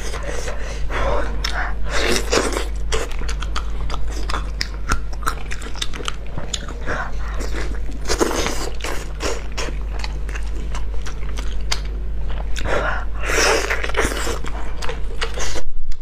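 Close-miked eating of salt-baked chicken legs: meat being torn apart by gloved hands over crinkling aluminium foil, with bites and chewing heard as many irregular small clicks and crackles. A steady low hum runs underneath.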